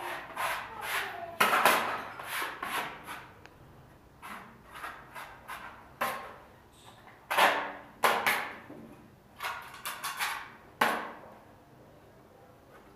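Hand sanding of a plaster ceiling moulding with sandpaper: short scraping strokes in uneven runs with brief pauses, stopping about two seconds before the end.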